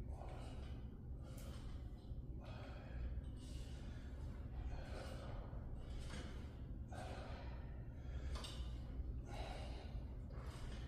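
A man breathing hard with exertion through a set of split squats, one loud breath about every second, over a low steady hum.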